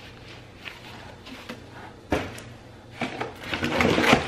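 Packaged craft items being set down and rummaged through in a cardboard box: a sharp knock about two seconds in, then rustling and bumping of packages and cardboard near the end.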